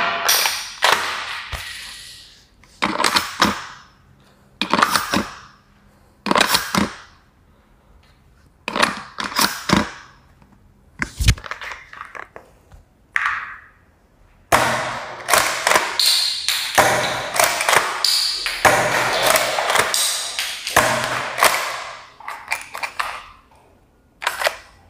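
XM1014 Benelli M4 Super 90 gel blaster shotgun being fired repeatedly, each shot a sharp plastic clack with a short ring. The shots come a second or two apart at first, then in a quick run for several seconds about two-thirds in.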